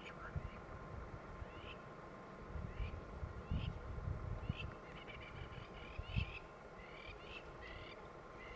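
Birds calling with short chirps repeated throughout, over an irregular low rumble of wind on the microphone.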